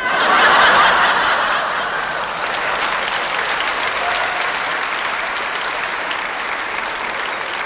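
Studio audience applauding, breaking out suddenly, loudest in the first second or two, then steady clapping that tapers off slightly.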